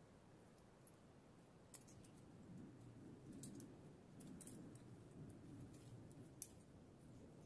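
Near silence: a faint low rustle with a few scattered, sharp little clicks, the clearest near the middle and about three-quarters of the way through.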